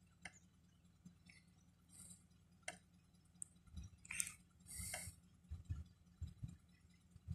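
Near silence: the CAT 307C excavator's engine is stalled and off. Only a few faint scattered clicks and short rustles are heard.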